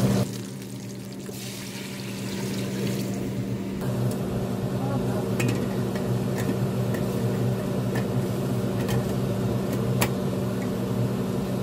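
Liquid poured into a hot stainless pot of browned pigs' feet, building into a steady sizzling rush, over a constant low electrical hum. A few light metal clicks come in the second half as the pressure-cooker lid is handled.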